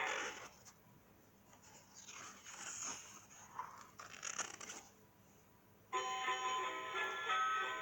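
Sound effects played back from a children's sound book: a faint, noisy effect for several seconds, then a tinkly electronic tune starts about six seconds in.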